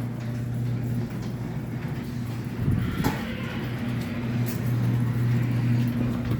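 Garage door opener running as it drives the door, a steady motor hum with a brief clatter about three seconds in.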